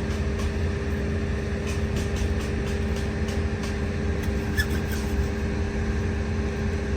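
A vehicle engine running steadily: a low rumble with an even hum and a few faint clicks.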